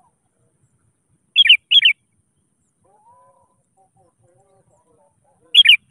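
Sooty-headed bulbul calling to a rival: a loud, bright pair of short notes about a second and a half in and again near the end, with faint, lower warbling notes between.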